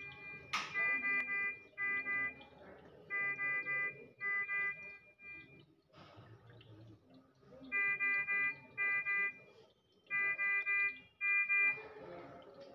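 Repeated electronic beeps on one steady pitch, each half a second to a second long, coming in runs separated by short pauses, over a faint low background.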